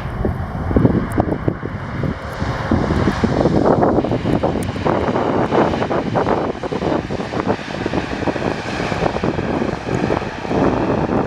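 Jet engines of an Air Transat Airbus A321neo, its Pratt & Whitney geared turbofans, running: a loud, rough rumble that swells to its loudest about three to four seconds in and stays strong.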